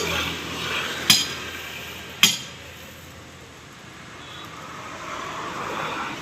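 Two sharp metallic hammer strikes, about a second apart, ringing off a truck tyre's steel rim as a stuck tyre is worked loose. A low, steady noise follows and builds towards the end.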